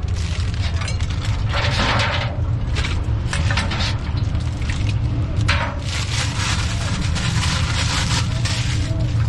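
Metal ladle scooping cendol from a metal pot and liquid splashing as a plastic bag is filled, in several bouts of pouring and sloshing, the longest about two thirds of the way in. A steady low rumble sits underneath.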